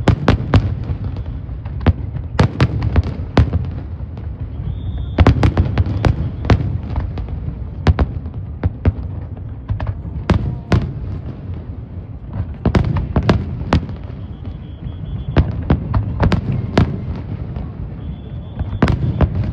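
Fireworks display: shells bursting in irregular volleys of sharp bangs, often several a second, over a continuous low rumble. Brief high whistling tones sound three times.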